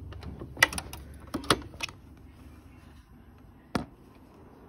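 Singer sewing machine with a low hum that dies away about two seconds in, under a handful of sharp mechanical clicks and knocks; one last knock comes near four seconds.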